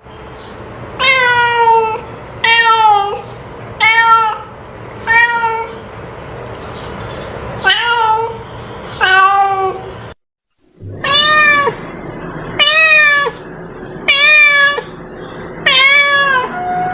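A cat meowing over and over, about ten separate meows each under a second long, each rising and falling in pitch. A brief silence breaks the series about ten seconds in.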